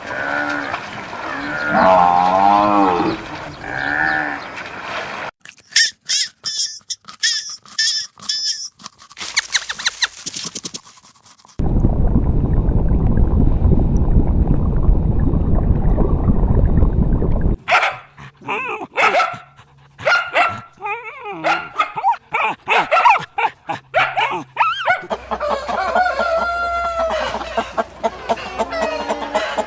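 A run of different farm animals' calls, cut one after another: pitched calls at first, then rapid high calls and clicks, a dense low noisy stretch of about six seconds in the middle, and more short calls near the end.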